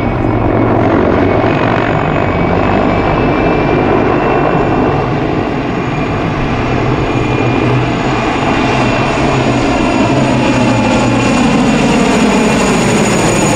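PZL-Świdnik Mi-2 helicopter in flight: a low rotor beat under the steady high whine of its twin turboshaft engines. In the second half its tones fall gently in pitch.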